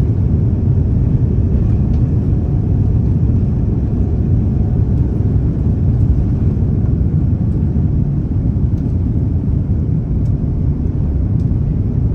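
Steady low rumble inside the cabin of an Airbus A330-900neo in the climb after takeoff: its Rolls-Royce Trent 7000 engines and airflow over the fuselage.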